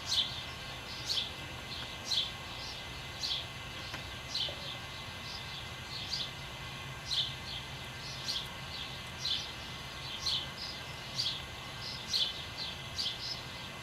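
A bird chirping over and over, short high chirps about once a second, a few coming in quick pairs near the end, over a steady low hum.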